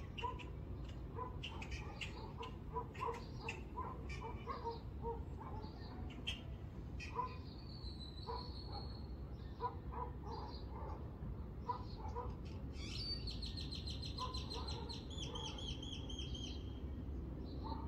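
Small birds chirping in a dawn chorus, many short calls throughout, with a rapid high-pitched trill from about two-thirds of the way in, over a steady low background rumble.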